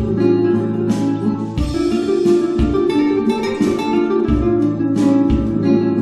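Relaxing instrumental background music of plucked string notes, such as guitar, over a deep bass note roughly every second.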